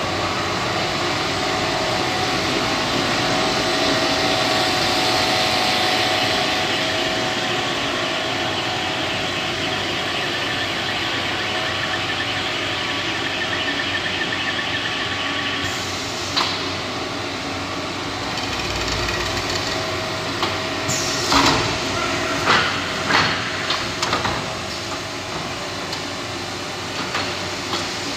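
Stretch film making machine running: a steady mechanical hum and whir with several steady tones. A single click comes a little past halfway, and a few sharp clacks and knocks come about three-quarters of the way through.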